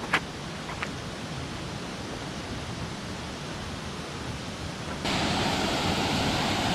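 Steady rushing of a river with waterfalls, which jumps abruptly louder and brighter about five seconds in. A couple of short sharp clicks come just after the start.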